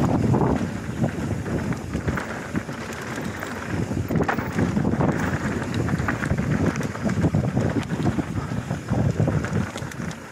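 Mountain bike descending a dirt trail at speed: wind rushing over the helmet camera's microphone, with tyres on dirt and many small rattles and knocks from the bike as it rides over bumps.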